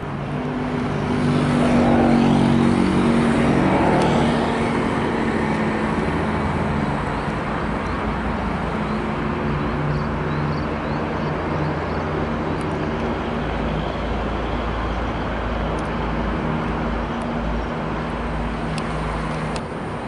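Road traffic with the steady hum of vehicle engines, loudest in the first few seconds.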